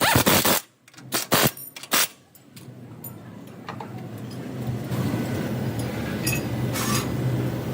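Car running, with a few loud clattering noises in the first two seconds, then a steady low engine hum that grows a little louder.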